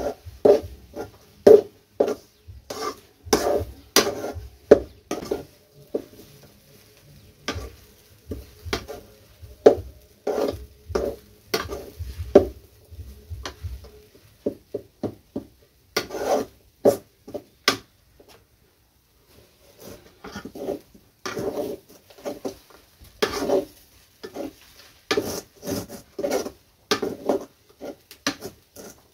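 Metal spatula scraping and knocking against a metal kadhai as thick semolina upma is stirred, in quick irregular strokes with a brief pause a little past the middle.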